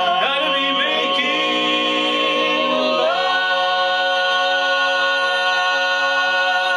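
Male barbershop quartet singing a cappella in four-part harmony, moving through the last notes of the song and then, about three seconds in, settling onto a final chord that is held steady.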